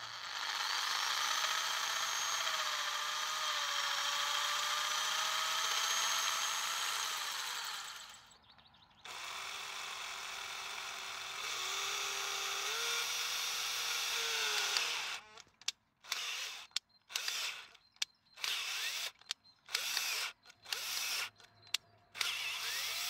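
Cordless drill-driver (Makita 6271L) boring into the cast metal housing of an OMC stern-drive transom assembly. The motor whines steadily, stops for about a second, then runs again with its pitch dropping lower as the bit bites. Near the end it comes in a string of short bursts.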